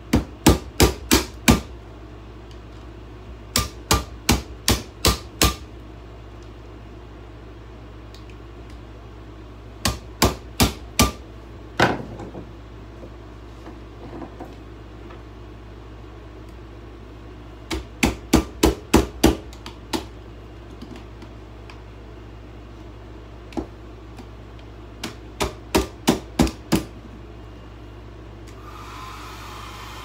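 Hammer blows striking an old hair dryer, in quick bursts of five or six strikes, five bursts several seconds apart. Near the end a steady whir starts up: the hair dryer running.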